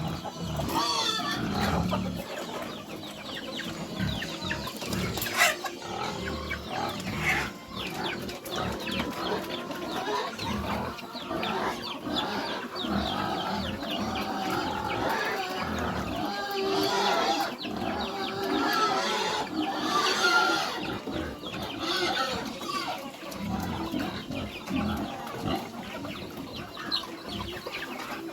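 Farm animals making a continual run of short, irregular calls.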